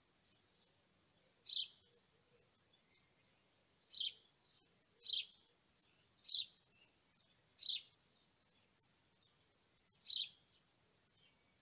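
A bird chirping: single short high chirps repeated at uneven gaps, six in all, one every one to two and a half seconds.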